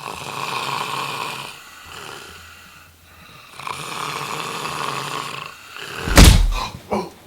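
A man snoring loudly: two long snores a couple of seconds apart, then a much louder, sudden burst about six seconds in.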